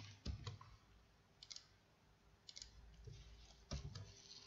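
Faint, irregular clicks of a computer mouse and keyboard, a few sharp clicks spaced unevenly apart.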